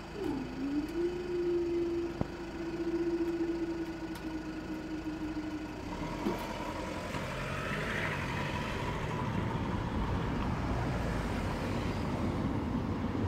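Level crossing barrier mechanism humming steadily as the barriers rise, stopping with a click about six seconds in as the crossing lights go out. Road traffic then starts moving across the crossing, growing louder.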